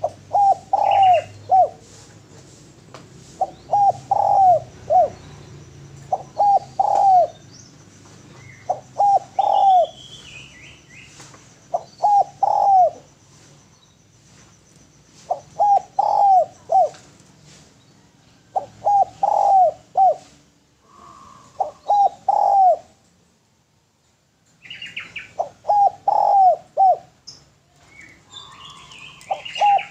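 Spotted dove (derkuku) cooing: a phrase of three or four coos repeated about every three seconds, breaking off briefly about three-quarters of the way through. Other birds chirp faintly and higher now and then.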